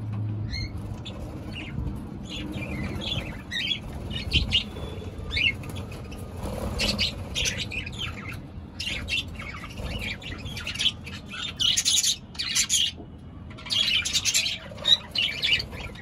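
A flock of budgerigars chirping and chattering, with many short high calls. The calls grow denser and louder in the second half.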